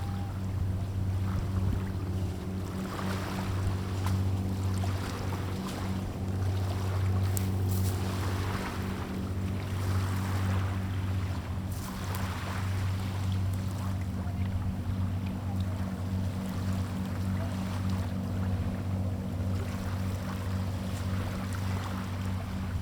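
Steady low motor hum with a faint regular flutter, over a wash of wind and water noise.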